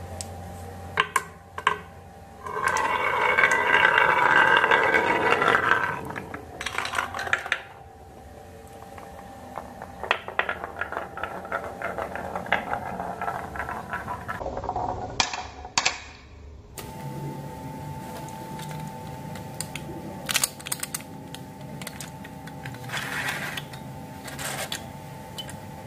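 Glass marbles rolling down wooden marble-run tracks, including a carved wavy ramp. A loud continuous rolling rush lasts a few seconds near the start, and scattered clicks and knocks follow as marbles drop and bump between the wooden pieces.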